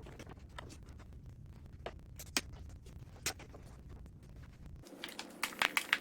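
Scratching and rubbing from hands working a unicycle wheel and tire, with scattered light clicks and a denser run of scratching near the end.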